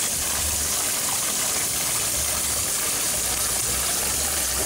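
Fountain water spilling over the rim of a basin and splashing into the pool below, a steady rushing splash.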